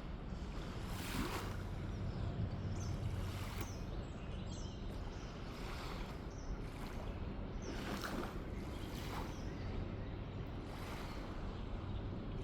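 Water lapping and splashing in repeated short surges, about one every second or so, over a steady low rumble.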